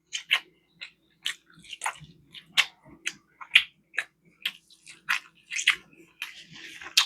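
Close-up wet chewing and lip-smacking of a person eating sauce-covered barbecue chicken, short sharp smacks about two to three a second. A brief hissing slurp comes near the end.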